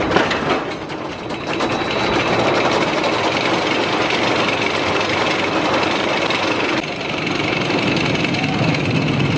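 Roller coaster train running on RMC I-Box steel track over a wooden support structure: a steady, loud rattle of wheels on track, dipping briefly about a second in.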